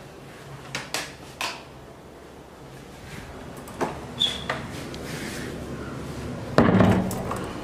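Scattered knocks, clicks and rubbing of a handheld phone being carried while someone walks through a house. There is a short squeak about four seconds in and a louder thump and rattle near the end.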